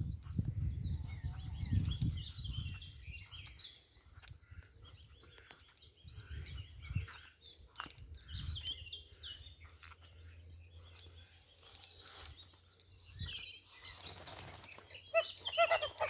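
Dawn chorus of songbirds: many overlapping chirps and phrases, with low thumps from walking in the first few seconds. Near the end, geese start calling.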